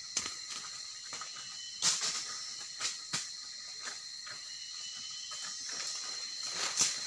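A steady, high-pitched insect drone with a thin whine, broken by a few sharp crackles of dry leaves and twigs underfoot. The loudest crackles come about two seconds in, just after three seconds, and near the end.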